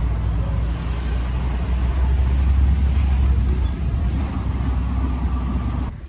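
Wind buffeting the microphone over the rumble of a vehicle's engine and tyres while riding in the open back of a vehicle; the steady, loud noise cuts off suddenly just before the end.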